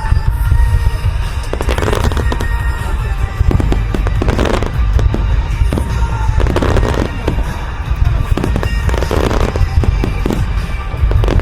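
Fireworks shells bursting in quick succession in a music-synchronised display (a music starmine), with a rock song playing along. Sharp bangs and clusters of crackling reports come every second or two over a continuous low rumble.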